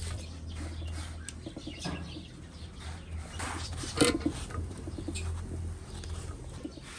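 Wood fire crackling under an iron tawa while a flatbread cooks and is pressed down with a cloth, with birds chirping in the background. A sharp knock about four seconds in.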